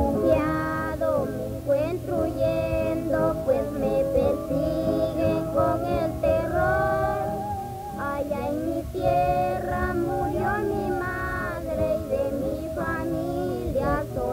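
A song: a high singing voice carrying a melody over guitar accompaniment.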